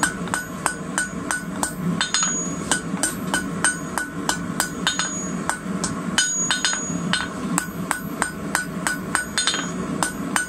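Steady hand-hammer blows on red-hot rebar over a steel anvil, about three strikes a second, each with a short metallic ring: the steel is being drawn out into a long taper.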